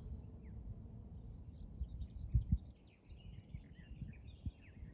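Small birds chirping and twittering, a few short calls at first and a busier run of chirps in the second half, over a low wind rumble on the microphone. A few soft low thumps come through, the loudest about halfway in.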